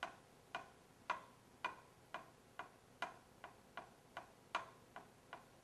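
A steady run of sharp ticks, about two a second and gradually quickening, like a clock or a tapping on the table.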